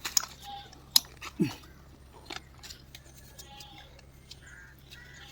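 A few sharp clicks and knocks, the loudest about a second in, over faint high chirping.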